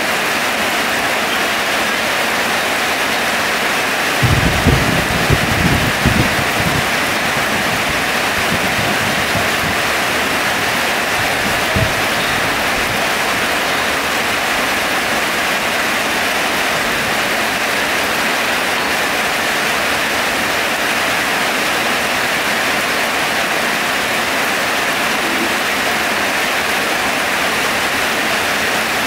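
Heavy rain falling steadily in a loud, even hiss. A few low thumps break in about four to seven seconds in, and one more near twelve seconds.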